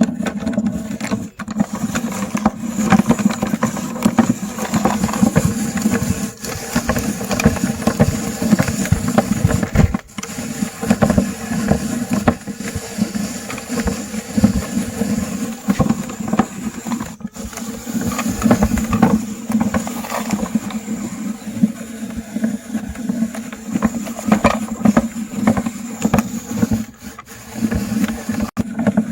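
Meat grinder running with a steady motor hum while candy crunches and cracks in it, with a few brief drops in the sound.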